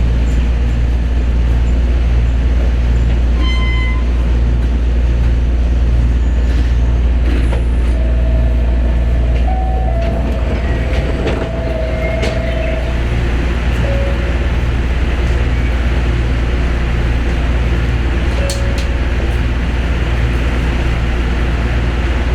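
Osaka Monorail train running, heard from inside the car: a steady low rumble, with faint motor tones that step up and down in pitch about halfway through.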